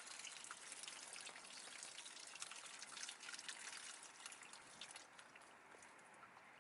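Water trickling and splashing from the engine sump drain of a flood-submerged 1972 MGB GT into a plastic tub. Water coming out where oil should be is the sign that floodwater got into the engine. The flow thins out over the last second or two.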